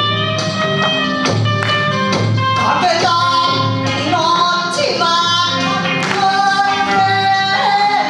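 Kawachi ondo: a woman sings a long-held, bending melody into a microphone over electric guitar accompaniment with a steady low beat.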